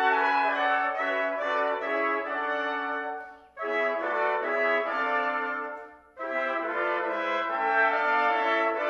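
Ensemble of five trumpets playing sustained chords in harmony, with the notes changing as they go. The sound stops briefly twice, about three and a half and six seconds in, before the chords start again.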